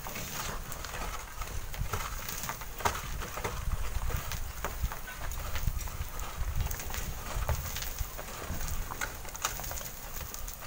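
Wind buffeting the microphone in an uneven low rumble, with scattered light clicks and knocks from long bamboo poles scraping loose sand and small stones down a sand cliff face.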